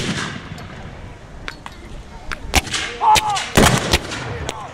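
Black-powder rifle muskets firing blank charges in a ragged, uneven string of single shots, with several going off close together about three and a half seconds in. A man shouts once just before that cluster.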